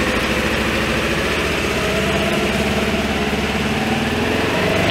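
Polaris Ranger 1000 side-by-side's twin-cylinder engine running steadily at low revs as the machine drives slowly.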